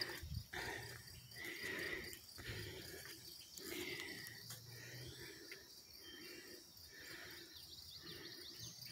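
Crickets chirping in a steady high trill, with the soft, irregular sounds of someone walking up a dirt trail.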